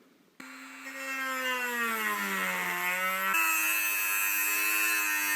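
Dremel rotary tool starting up about half a second in and running with a high whine while grinding material away; its pitch sags slowly for a couple of seconds, then jumps up a little past the halfway point and holds steady.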